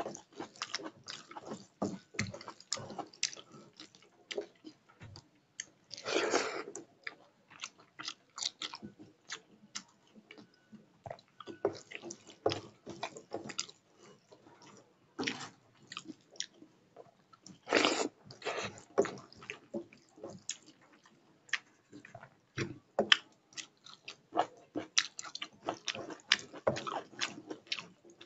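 Close-miked eating: a person chewing mouthfuls of rice with curry and dal, with many short wet smacks and clicks and the sound of rice being mixed by hand on a steel plate. Two longer, louder sounds come about six seconds in and again about eighteen seconds in.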